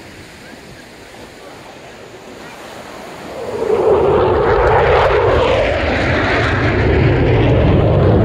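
A jet aircraft passing low overhead. Its noise comes in suddenly about three and a half seconds in and stays loud, with surf washing on the beach underneath before it arrives.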